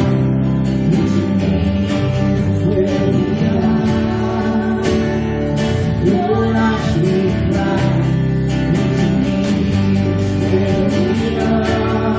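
Live church worship band playing a slow song, with guitar and keyboard to the fore and some singing.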